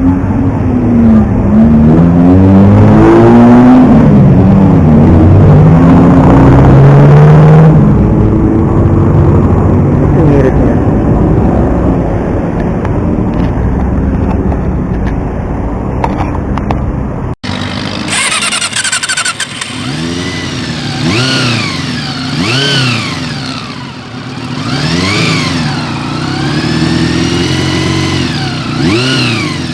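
Honda CB1 motorcycle engine being revved, its pitch sweeping up and down, then running more steadily. After a sudden cut about 17 seconds in comes a series of short throttle blips, each rising and falling in pitch.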